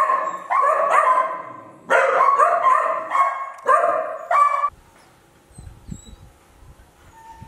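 Young puppies yelping and whining in a rapid string of high-pitched yips that stops about four and a half seconds in, leaving only a faint low rumble.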